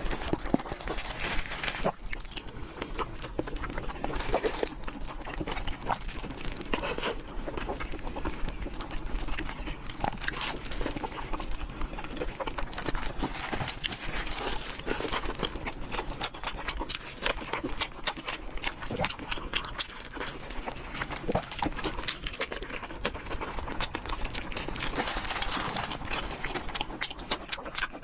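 Close-up chewing and mouth sounds of a person eating, a steady stream of small smacks and clicks with no pauses.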